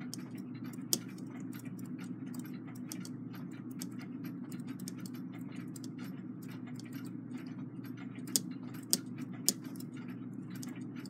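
Brass clock movement being turned by hand through a strike-warning test: a steady run of faint light ticks and clicks from its wheels and levers. There is one sharper click about a second in and three louder clicks, about half a second apart, near the end. A steady low hum runs underneath.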